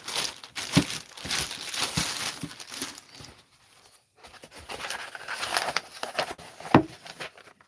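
Plastic packaging being torn open and crinkled off a new plastic bread keeper, with a couple of sharp knocks, about a second in and again near the end.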